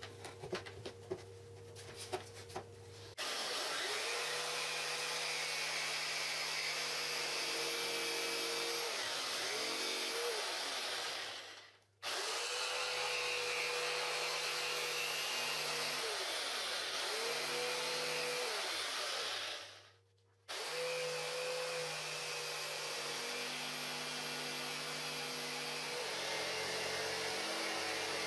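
Electric jigsaw cutting through a board along a curved template line, motor pitch dipping and recovering as the blade is pushed through the cut. It starts about three seconds in after a few light clicks, and twice fades out and cuts abruptly back in.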